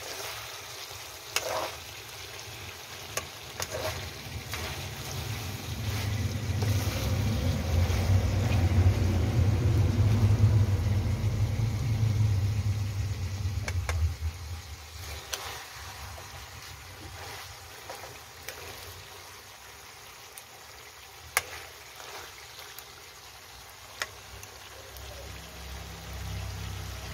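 Chicken adobo simmering and sizzling in a wok over a wood fire, with a steady hiss and occasional sharp clicks. A low rumble swells up and fades away over several seconds in the middle.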